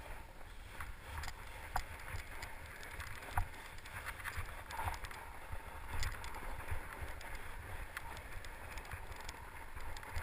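Fat-tyre mountain bike riding over snow: steady tyre and ride noise with a low rumble, broken by several sharp clicks and knocks from the bike jolting over bumps.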